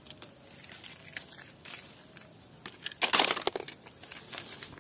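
Leaves and dry stems of weeds and vines rustling and crackling as a hand pushes through them, with a louder burst of rustling about three seconds in.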